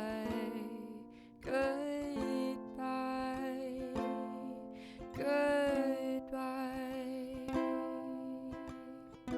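Ukulele playing, with a voice singing along in long notes that slide in pitch.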